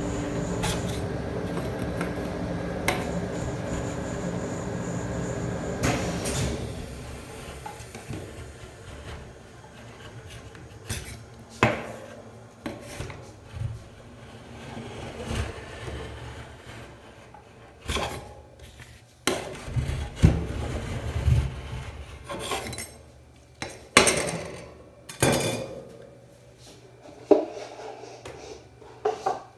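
Metal spatulas scraping across and knocking against the stainless-steel cold plate of a rolled-ice-cream pan, with a string of sharp clanks in the second half. A steady mechanical hum fades out about six seconds in.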